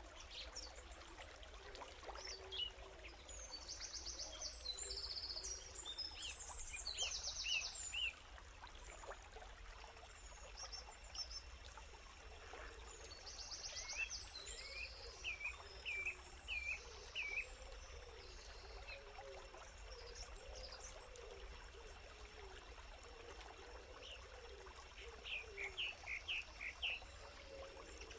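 Forest birds calling, in several runs of short high chirps and fast trills, over a faint steady trickle of a stream.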